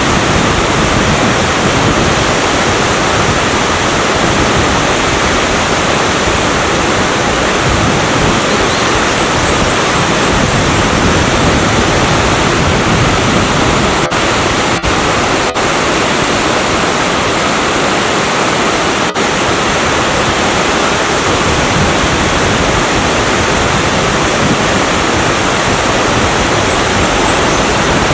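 A 5 m natural waterfall pouring over a rock face into its deep plunge pool: a loud, steady rush of falling water.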